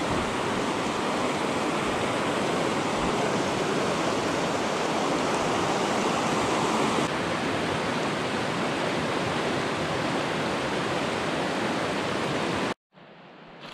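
Rushing water of a shallow, rocky river riffle, a steady loud rush that cuts off abruptly near the end.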